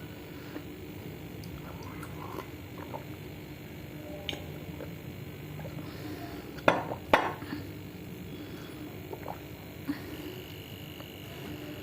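Person eating baked clay close to the microphone: quiet mouth sounds with scattered small clicks, and two sharp cracks about half a second apart around the middle.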